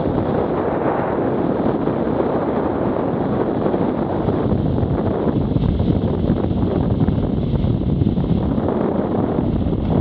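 Steady wind buffeting on an action camera's microphone on a moving BMW F800GS motorcycle, a loud rumbling rush that covers the engine and tyre noise.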